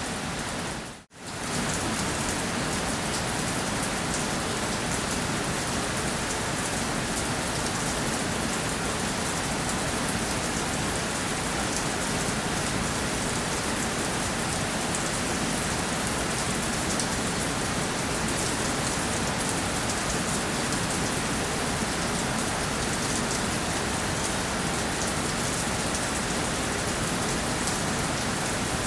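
Steady rain falling, a dense even hiss with fine drop ticks. The sound cuts out for a moment about a second in, then resumes unchanged.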